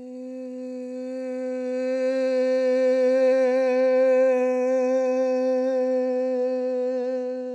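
A woman singing one long held note on the syllable "my", steady in pitch, growing louder over the first few seconds and then held. It is a voice warm-up in which the note is sung louder and louder on a single breath until the air runs out.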